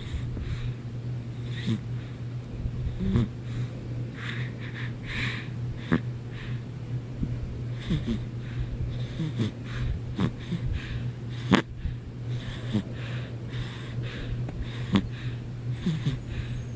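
Someone snoring in sleep: rough, wheezy breaths coming every second or two, broken now and then by short snorts.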